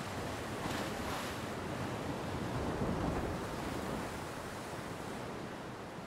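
Ocean surf: a wave breaks and washes in, swelling to its loudest about three seconds in, then easing off.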